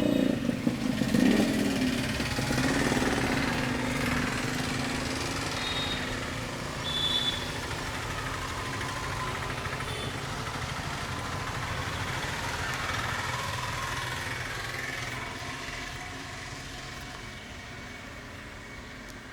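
Street traffic: a motor vehicle's engine running close by, loud at first, then slowly fading away into general traffic noise.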